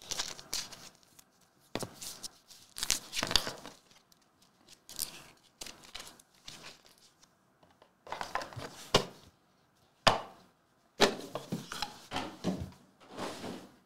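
Trading cards in plastic holders and the card box being handled on the table: a run of irregular rustles and crinkles, with one sharp click about ten seconds in.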